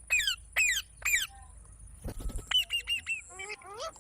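Pet green parrot screeching: three loud shrieks falling steeply in pitch within the first second or so, then a quick run of four short chirps and a couple of rising calls near the end. A brief rustle comes about two seconds in.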